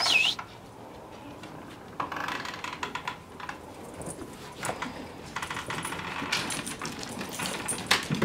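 A brief high squeak right at the start, then light, irregular jingling and clicking from dog collar tags and claws on a wooden porch deck as two dogs move about.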